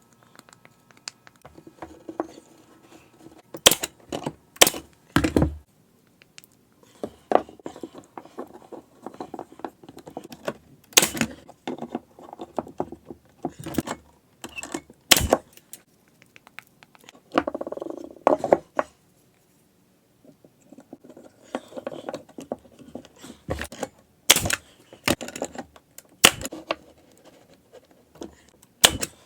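Small wooden pieces being handled, set down and knocked together in a workshop: irregular sharp clicks and knocks, a few much louder, between softer rustling and handling noise.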